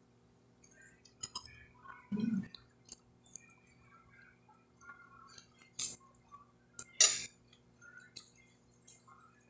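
Eating sounds at a glass plate: a metal fork clinking and scraping on the glass, with soft chewing of lettuce. There is a short dull thump about two seconds in, and two sharp clinks just before six and seven seconds in, the second the loudest.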